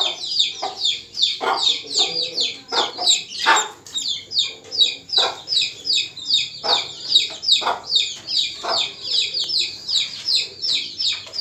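Yellow duckling peeping over and over, a fast string of short, high, falling peeps about four or five a second, with a few short splashes of water as it paddles.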